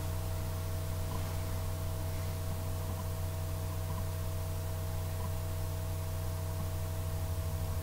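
Steady electrical hum made of several constant tones, over a faint even hiss.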